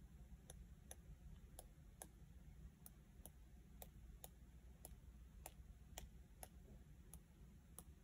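Faint light clicks, about two or three a second: a paintbrush loaded with white paint being tapped against a finger to flick small splatters onto a watercolour painting.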